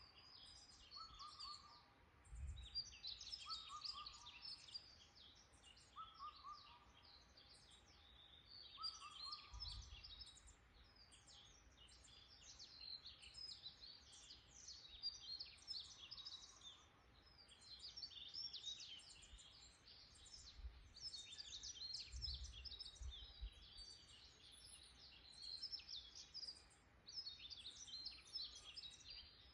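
Faint woodland birdsong: several small birds chirping in a dense, continuous chorus of quick high notes. Through the first third, a lower, short falling note repeats about every second and a half. A few brief low rumbles come and go.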